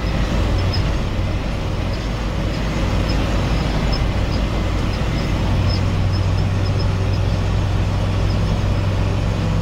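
Big Ford tractor's diesel engine running steadily while driving, heard from inside the cab with the sunroof open; the low engine drone grows stronger about halfway through.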